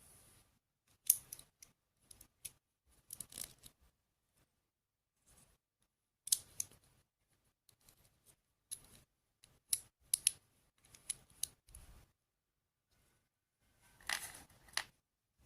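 Scissors snipping: a dozen or so short, sharp cuts at uneven intervals, with a louder cluster near the end.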